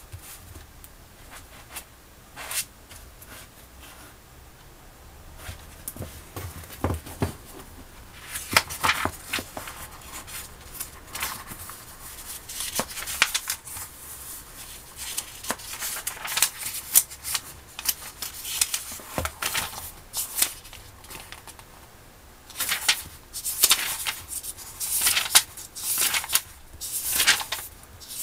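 A paperback book being handled, opened and its pages turned: irregular bursts of paper rustling and flicking, sparse for the first few seconds and busier later on.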